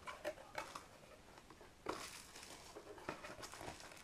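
Faint rustling of cardboard box flaps and plastic packaging with a few light taps as hands reach into an opened box.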